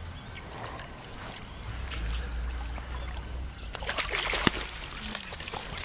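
Pond-side outdoor ambience: scattered short bird chirps over a low steady rumble, with a brief burst of noise about four seconds in.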